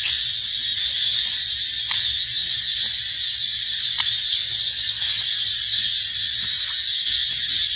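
Cicadas singing in a steady, high-pitched chorus, with two faint clicks about two and four seconds in.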